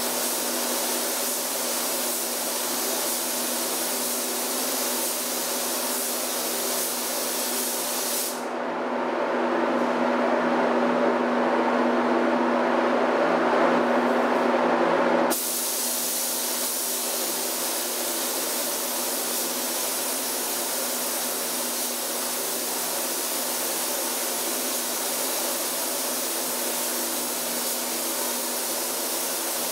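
Compressed air hissing steadily through a gravity-feed paint spray gun as it lays down paint, over a steady low hum. For about seven seconds in the middle the hiss turns duller and a little louder, its high end gone, then the brighter hiss comes back suddenly.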